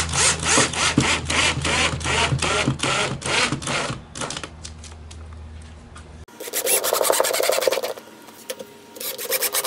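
Cordless drill driving wood screws slowly through a plastic wall rail into the studs: the motor hum under a rapid pulse of about four a second as each screw bites in. After a break about six seconds in, the next screw goes in with a short burst, and another starts near the end.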